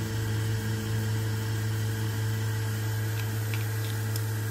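Steady low electric hum of a small motor running, with a few faint light ticks about three to four seconds in.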